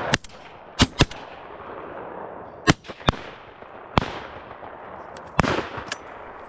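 Several shotguns firing at pheasants: about six sharp shots, some loud and close and others fainter from further off, each with a short echo. They include a quick pair about a second in.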